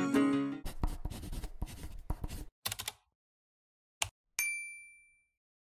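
Logo-intro sound effects: a scratchy, clicking rustle, a brief click, then a single bright ding that rings out and fades over about a second, all after the tail of guitar music.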